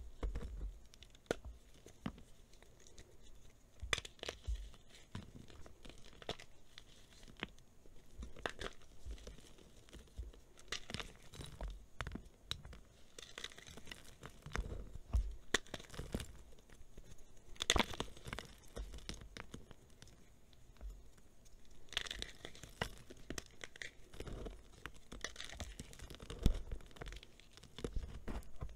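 Dried reformed gym chalk being crushed and crumbled by hand: irregular crunches and crackles as chunks break apart, with a few louder snaps partway through and near the end.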